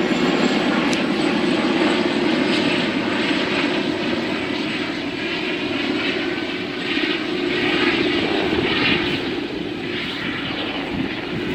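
Helicopter flying overhead: a steady drone of rotor and engine noise.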